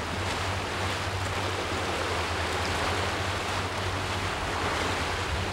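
Water rushing and churning along a fishing boat's hull, over the steady low hum of the boat's engine.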